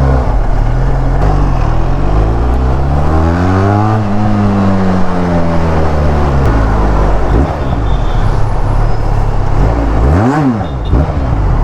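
Benelli TRK 502 parallel-twin engine and exhaust while riding: the revs climb to a peak about four seconds in, then fall away as the throttle eases. Near the end there is a quick rev, up and straight back down.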